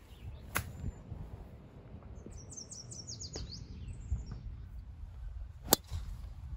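A golf club strikes a ball about half a second in. A bird sings a quick run of high, falling notes in the middle. Near the end comes the loudest sound: one sharp crack of a driver hitting a ball off the tee.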